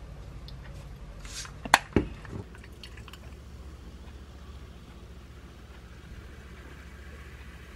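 A few sharp clicks and a knock about two seconds in, then cola poured from a can into a glass, a faint steady pouring and fizzing sound.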